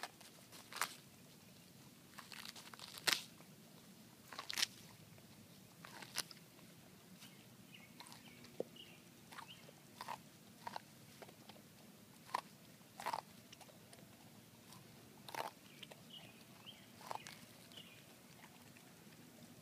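A dog tearing the husk off an ear of corn and biting into the cob: sharp, irregular crunches and rips, roughly one every second or so, with quieter chewing between.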